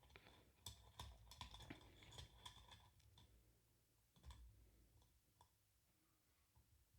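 Faint metallic clicks and ticks of a lock pick and tension wrench working the pins of a lock held in a vise. The clicks come in a quick irregular run over the first few seconds, then a few scattered ones.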